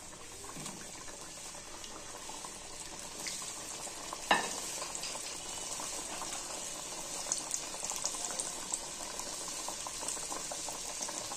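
Samosas deep-frying in hot ghee, put back in for a second fry: a steady sizzle with scattered crackles and pops, busier in the second half. One sharp knock about four seconds in.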